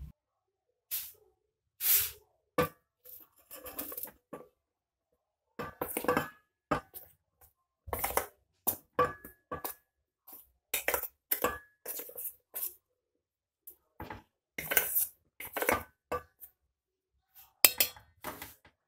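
A steel spoon scraping and knocking against metal bowls in quick, irregular strokes as flour is spooned from one bowl into another, some knocks leaving a brief metallic ring.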